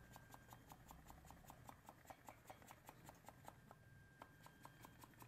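Small hand-held bicycle pump being worked quickly to put a little air into a new inner tube: a fast, even run of faint clicks, about six a second.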